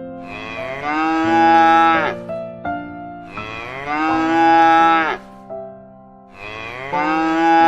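Cow mooing: three long moos about three seconds apart, each rising at the start and dropping off at the end, over soft background piano music.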